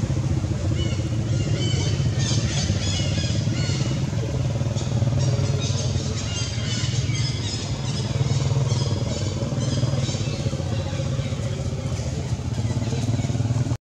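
Steady low rumble of an engine running, with many short high chirps scattered over it.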